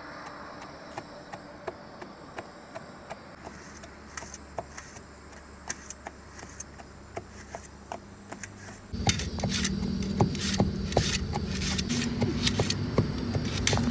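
A kitchen knife slicing onions on a steel plate: a run of sharp clicks as the blade meets the metal, several a second. About nine seconds in the clicks grow louder and a steady low hum sets in under them.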